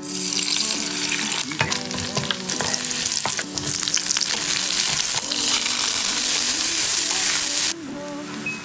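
Food sizzling in hot oil in a wok as onion, bok choy, sausage and instant noodles are stir-fried, with sharp clicks and scrapes of the spatula against the wok. The sizzle drops off suddenly near the end.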